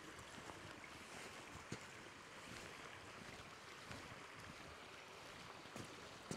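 Shallow, stony river running, a faint steady rushing hiss, with a few soft taps of footsteps on the path.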